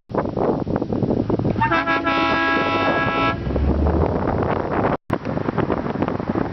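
An air horn gives one blast of about a second and a half, starting about two seconds in, over steady outdoor background noise. The sound drops out for an instant about five seconds in.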